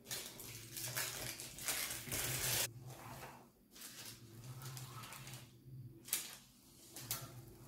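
Crinkling and rustling of a plastic piping bag being handled and squeezed. It is loudest and most continuous in the first two and a half seconds, then comes in short bursts.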